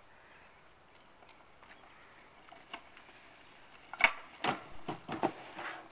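Faint for the first few seconds. Then, about four seconds in, a run of sharp clacks and rattles, the first the loudest, from the small wheels of a wooden dolly cart rolling fast across asphalt.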